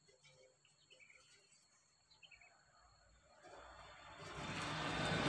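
Faint bird chirps, a few short notes falling in pitch twice, over near silence, then an even noise that swells up steadily over the last two seconds.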